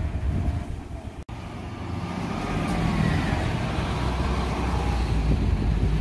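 A vehicle passing close by: a steady low rumble that builds slightly, with a faint falling whine in the middle. The sound drops out abruptly about a second in, then resumes.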